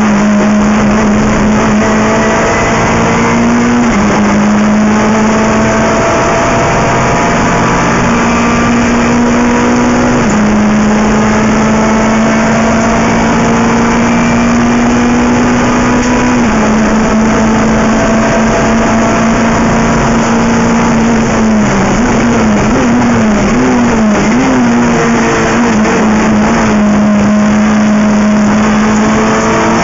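Renault Clio Cup III race car's 2.0-litre four-cylinder engine running hard at high revs, heard from inside the stripped cabin; its pitch climbs and then steps as it shifts through the gears, and wavers up and down in a run of blips and downshifts about three-quarters of the way through.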